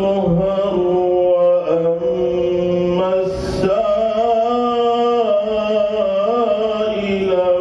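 A man reciting Quranic verses in the melodic chanted style, holding long notes with slow, ornamented bends in pitch. A short rush of noise breaks the line about three seconds in.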